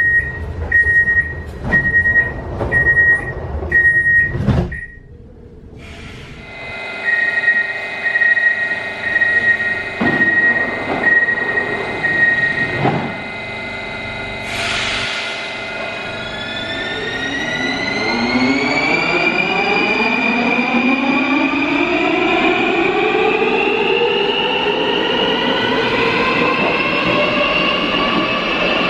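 Škoda Varsovia metro train: door-closing warning beeps at one pitch, about one a second, in two runs. Near the middle there is a short hiss as the doors shut. The train then pulls away, its electric traction motors whining in several tones that rise steadily in pitch and grow louder.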